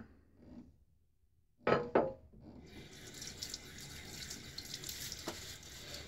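Two short knocks, then a bathroom tap running into the sink, its water noise growing steadily louder.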